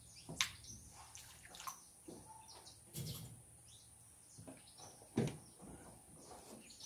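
Quiet outdoor ambience with faint, scattered bird chirps and a few soft knocks, about half a second, three and five seconds in.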